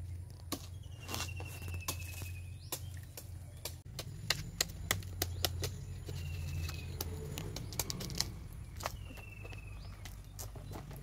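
Dry coconut palm fronds and flower sheaths cracking and snapping as they are broken off by hand at the crown, a run of sharp clicks densest about four to six seconds in. A bird's short high trill sounds three times over a low steady hum.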